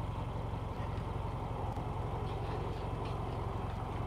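An engine idling steadily: a low, evenly pulsing rumble, with a few faint clicks over it.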